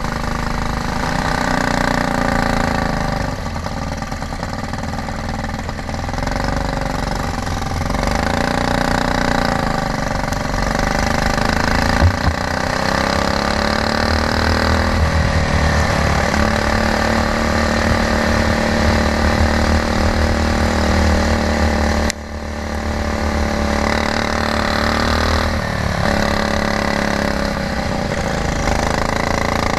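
Stock Honda GX390 single-cylinder four-stroke kart engine running at racing speed, its pitch rising and falling again and again with the throttle. About three-quarters of the way through, the sound drops out for a moment and then builds back up.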